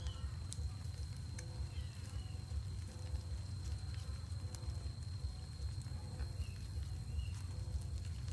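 Rural outdoor ambience around a coconut-shell charcoal grill: a steady low rumble, a thin steady high whine, a few short chirps, and scattered faint crackles from the glowing charcoal.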